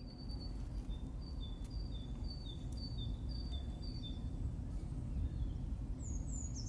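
A songbird repeating a short two-note call, a higher note then a slightly lower one about every half second, with a few higher, falling notes near the end, over a steady low rumble.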